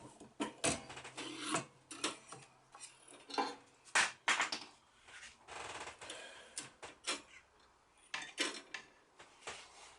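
Irregular hand-work noises: rubbing and scraping with light clicks and knocks, coming in short spells with pauses between them.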